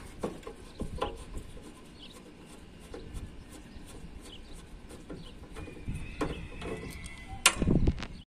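Scattered clicks and knocks of hand tools and metal parts as the outdoor unit's fan motor is being removed and replaced, with a loud sharp knock and a few heavier thuds near the end.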